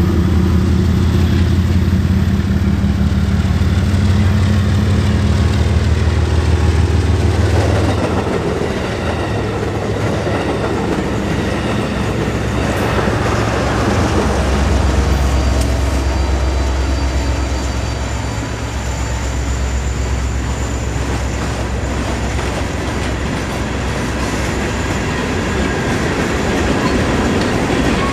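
Diesel-hauled train passing close by: a deep locomotive engine hum for the first several seconds, then a steady rush of wheels clattering over the rail joints as the cars roll past.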